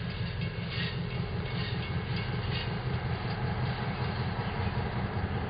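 Distant diesel locomotive running, heard as a steady low rumble.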